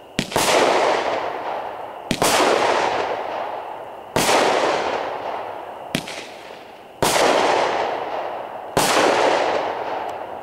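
Squirrel Star Thunder firework going off shot after shot: about six sharp bangs, one every one and a half to two seconds, each trailing off over a second or two.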